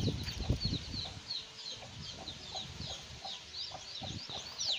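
Newly hatched chicks peeping, a steady stream of short, high cheeps that fall in pitch, with a few low thuds in the first second.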